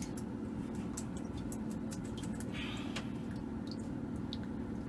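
Steady low mechanical hum with scattered light clicks and ticks over it.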